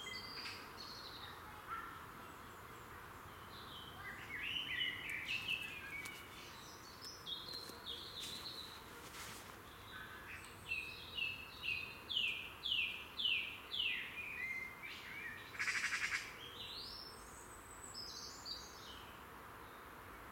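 Songbirds singing, with high chirps and short phrases over a faint steady hiss. A little past the middle comes a run of five or six quick falling notes, then a short dry rattle.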